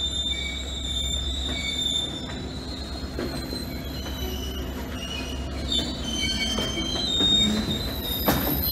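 Freight train's covered hopper cars rolling slowly past in reverse, their steel wheels squealing against the rails in several steady high tones over a low rumble that grows louder as the cars come close. A sharp clank sounds near the end.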